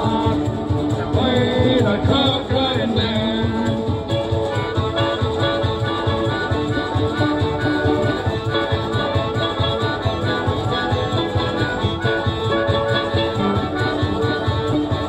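Small country band playing an uptempo song: blues harmonica carries the lead over a strummed 12-string acoustic guitar and mandolin, with a steady beat from foot-operated percussion pedals.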